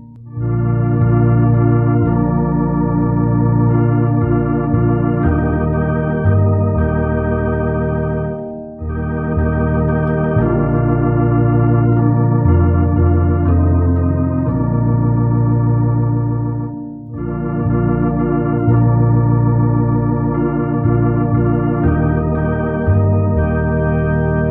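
Organ playing a slow hymn tune in sustained chords, with short breaks between phrases.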